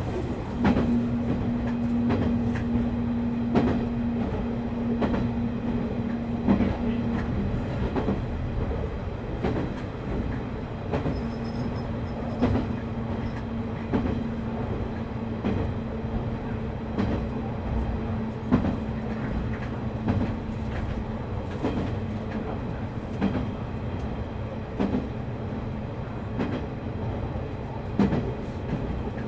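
Diesel railcar running along the track, heard from inside: a steady rumble of wheels on rail with sharp clacks over rail joints every second or two. A steady engine drone holds for about the first seven seconds, drops out, and returns a few seconds later.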